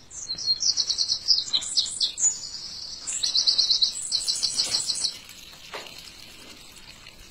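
A small songbird singing in two bursts of rapid, high chirping trills, each about two seconds long, with a short pause between them.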